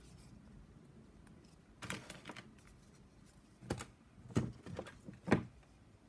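Thick craft-foam kit pieces being handled and pressed together by hand: a handful of short clicks and rubbing rustles, the sharpest ones in the second half.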